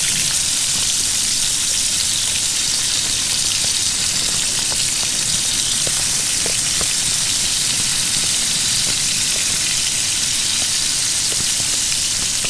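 Two smash burger patties frying in hot oil in a small frying pan: a steady sizzle with a few faint pops.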